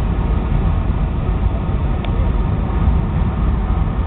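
Steady cabin noise of a Boeing 757-200 on approach: engine and airflow noise heard inside the cabin as an even, low rumble.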